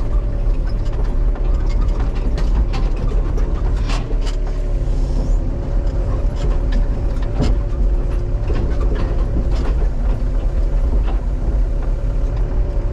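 Excavator running under load, its diesel engine and hydraulics holding a steady drone with a whine, while scattered knocks and clicks come from the machine pushing dirt with its blade.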